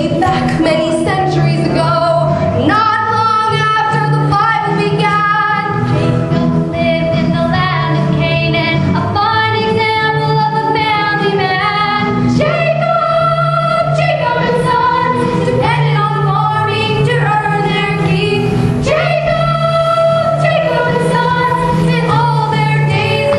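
A live musical-theatre song: a female singer over instrumental accompaniment with a steady bass line.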